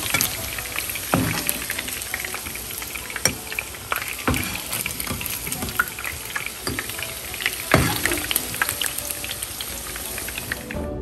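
Chicken pieces sizzling and crackling in hot oil in a nonstick frying pan, with a few knocks as a slotted metal skimmer lifts them out.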